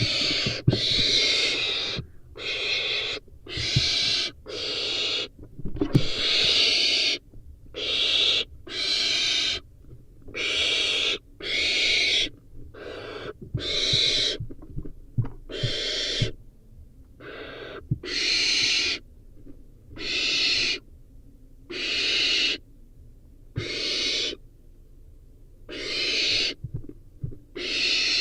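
Barn owl nestling hissing over and over, a rasping, breathy call of about half a second to a second repeated about once every second or so, the typical begging hiss of barn owl chicks. Faint knocks and scratches come between the calls.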